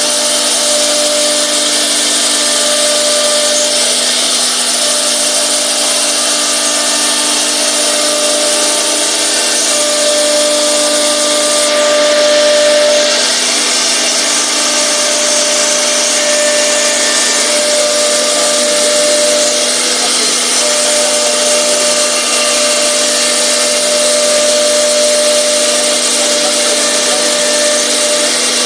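CNC panel furniture router running and cutting board: a steady loud whirring noise with a steady whine running through it.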